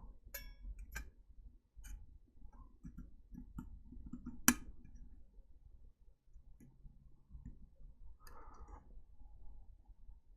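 Faint, scattered clicks and taps of a small plastic-cased electronics device being handled as its circuit board is worked into the housing, with one sharper click about four and a half seconds in.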